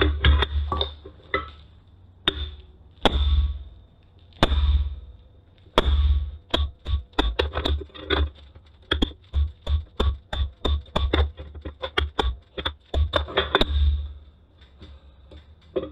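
Hammer blows on a fuller driving into the hot steel of a rounding-hammer head beside the eye, each a sharp ringing strike. A few spaced blows are followed from about six seconds in by a fast steady run of about three blows a second that stops near the end.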